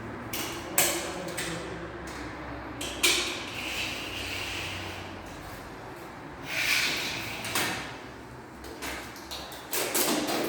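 Irregular knocks and clatters with a few sharp bangs, some followed by a brief hissing scrape.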